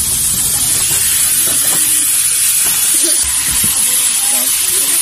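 Red-marinated meat and its sauce sizzling on a hot round grill pan, a steady loud hiss as the marinade is poured on and the pieces are stirred.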